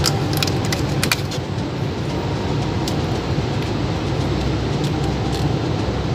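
Steady low rumble of road traffic, with a few light clicks of small plastic plant pots being handled.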